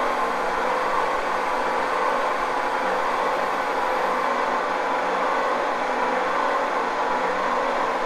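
A lathe's electric motor and gearbox run steadily, powered through a variable-frequency drive (frequency converter).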